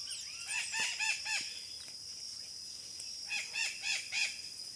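A flock of maritacas, small Brazilian parrots, screaming: two bouts of rapid, repeated harsh calls, about half a second in and again past three seconds, over a steady high insect buzz.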